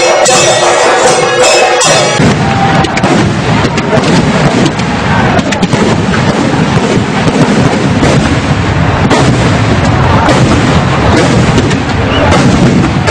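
Chenda drums with a held piping tone for about the first two seconds, then a dense, continuous crackle of firecrackers going off in rapid succession.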